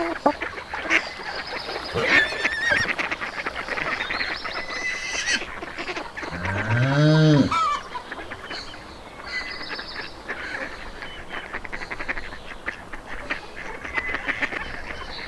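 Farmyard animals calling: honking and quacking fowl with high chirps scattered through. One deep call, rising then falling in pitch, comes about six seconds in and is the loudest sound.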